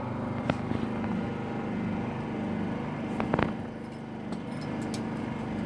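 Generator engine running steadily, a continuous low hum, with a few sharp clicks about half a second in and again around three seconds in.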